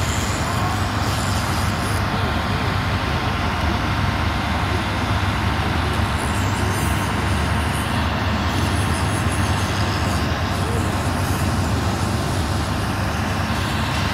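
Steady low rumbling noise with a broad hiss, even in level throughout.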